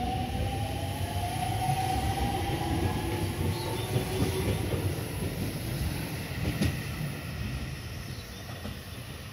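Aonami Line 1000 series electric train departing: its motors whine, rising in pitch over the first few seconds as it accelerates, over a low rumble of wheels on the rails. The sound fades over the last couple of seconds as the train draws away.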